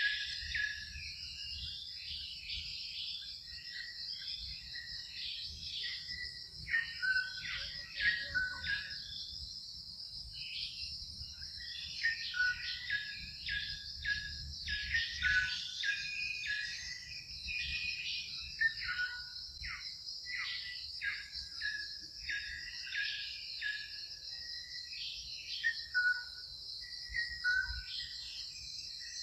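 Steady high-pitched insect drone, like cicadas or crickets, with many short chirps and squeaks scattered over it.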